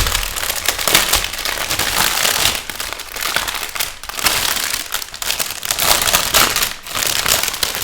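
Crinkling and rustling of small plastic bags of diamond-painting drills being handled, a continuous irregular crackle.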